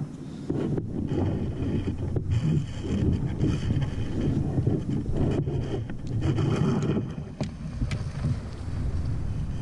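Wind buffeting an action camera's microphone as a low steady rumble, with a higher whirr in two stretches, about two seconds in and again around the middle, as the spinning reel is cranked against a hooked kingfish.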